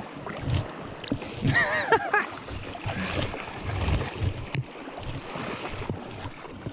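Shallow seawater sloshing and splashing with irregular low thumps, and a short wavering call about a second and a half in.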